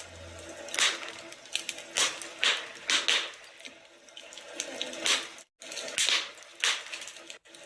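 Wood fire crackling in a fireplace: a steady hiss with frequent sharp pops and snaps. The sound cuts out for a split second twice near the end.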